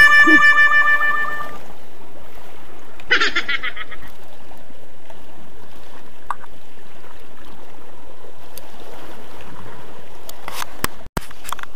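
Steady rushing noise of sea water and wind along a rocky shore. A held musical tone fades out in the first second and a half, there is a short rattling burst about three seconds in, and there are a few sharp knocks near the end.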